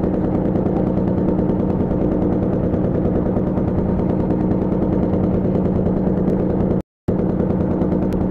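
Fishing boat's engine running steadily under way, a rapid, even chugging beat. The sound drops out to silence for a moment about seven seconds in.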